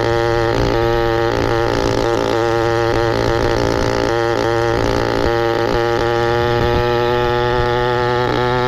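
The motorized bicycle's small engine running at a fairly steady speed, its pitch wavering slightly.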